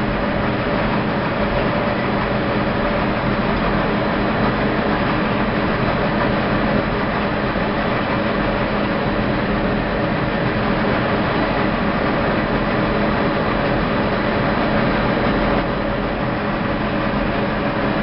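Rope making machine running steadily as its take-up spool winds orange rope through a traversing guide: a loud, even mechanical drone with a constant hum.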